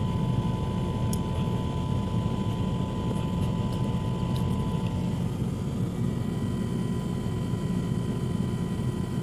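Air conditioner running with a steady low hum from the compressor and fan. A faint high tone fades out about halfway through. The unit is not fully charged, and a soap test shows it is leaking refrigerant.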